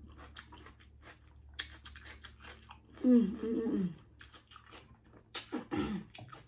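Close-up chewing of crisp cucumber, with wet crunches and mouth clicks throughout. A brief hummed or voiced sound with the mouth full comes about three seconds in and again near the end.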